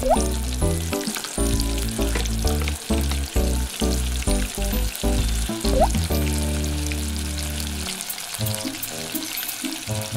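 Frying sizzle, a steady crackling hiss, over background music with a rhythmic bass line that drops out near the end.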